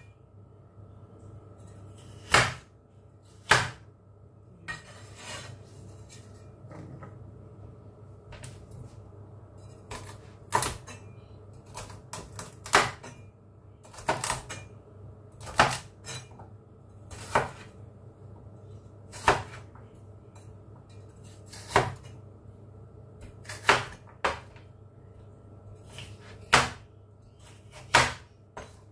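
Chinese cleaver cutting celery stalks on a cutting board: sharp single knocks of the blade striking the board, one every second or two, over a steady low hum.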